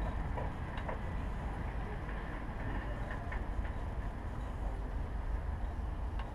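Steady low rumble with a few faint, scattered clicks of hand tools on metal in a truck's engine bay.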